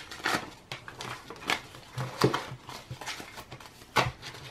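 Paper banknotes rustling and flicking in irregular crisp bursts as a handful of bills is counted through by hand and then tapped square into a stack.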